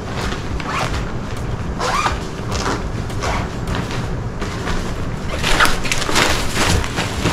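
Fabric packing cubes and a nylon backpack rustling and swishing as they are handled and packed, with irregular scrapes that get busier and louder about five and a half seconds in.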